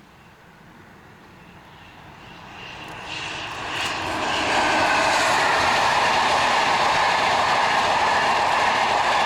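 A train approaching and passing close by: its rumble and rush grow steadily louder over about four seconds, then hold loud and steady with a faint whine above the noise.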